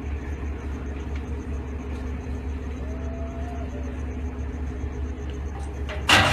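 Steady low rumble of engines running at a ship fire, where fire crews are pumping water onto the burning boat. A sudden loud rush of noise breaks in near the end.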